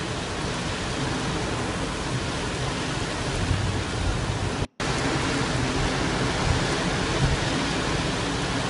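Steady, dense roar of a muddy flood torrent pouring down a swollen waterfall, with a deep rumble underneath. The sound drops out for a moment about halfway through.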